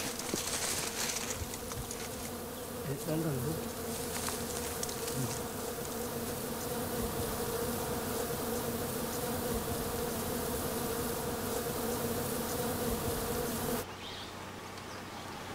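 Swarm of honeybees buzzing in a steady hum, which stops abruptly near the end.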